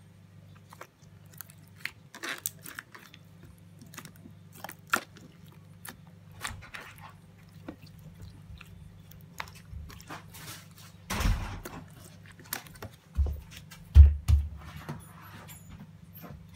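Clear slime squeezed and kneaded by hand, giving irregular wet clicks, pops and squelches. A few dull thumps come in the second half, the loudest a little before the end.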